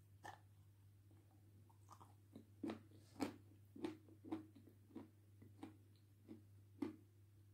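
Close-up mouth sounds of biting, sucking and chewing a block of white edible clay coated in wet red clay: a faint, irregular series of short wet smacks and soft bites, roughly one every half second to a second.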